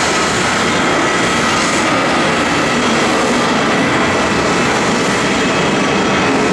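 Airbus A319 airliner's twin jet engines at climb power just after takeoff, a steady loud rush of jet noise with a faint high whine running through it.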